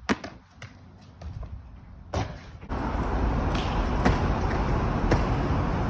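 Sharp thuds and slaps of feet and hands landing on paving and concrete, the loudest about two seconds in. From about halfway a steady rushing noise takes over, with a few lighter knocks in it.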